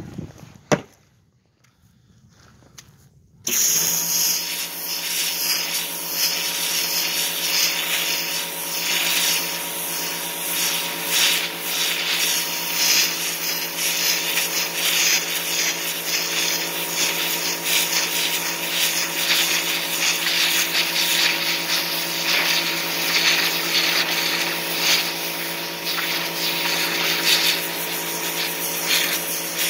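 A single sharp knock, then about three and a half seconds in an electric pressure washer starts abruptly and runs steadily. Its motor and pump hum under the loud hiss of a 0-degree jet blasting the flesh side of a deer hide to strip it.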